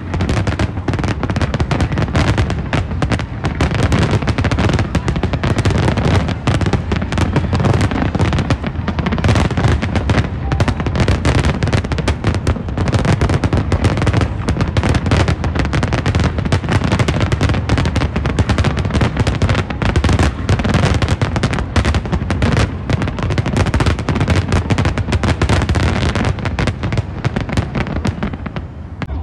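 New Year fireworks display: a dense, continuous barrage of bangs and crackles overlapping many times a second, with heavy low booms throughout.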